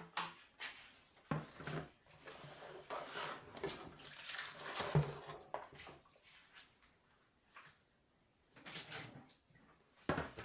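Scattered knocks and clatter of kitchen utensils being handled at the counter, with a few brief rustling or splashing sounds. The sharpest knock comes about halfway through.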